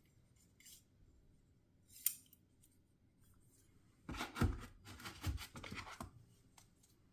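Metal hand tools being handled and lifted out of a foam toolbox tray: a single click about two seconds in, then about two seconds of clicking, clattering and scraping.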